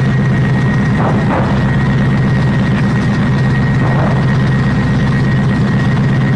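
PzH 2000 self-propelled howitzer's diesel engine idling steadily: a deep, even rumble with a thin high whine above it. A few faint clicks come through about a second in and again near four seconds.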